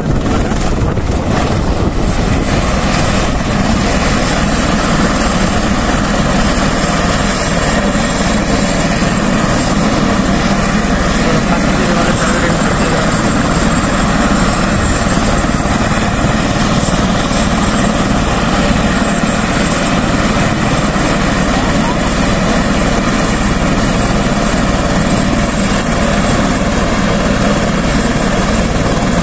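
Airbus H130 (EC130) turbine helicopter running on the ground with its rotor turning, a steady loud rotor and engine noise with a thin high turbine whine on top.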